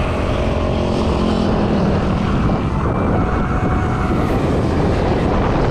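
Steady wind rush over a bike-mounted action camera's microphone while riding along a paved road, mixed with the rumble of the bicycle's tyres and faint passing motor traffic.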